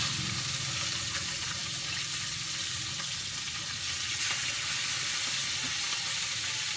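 Steady, even hiss with a low hum beneath it, unbroken and without speech.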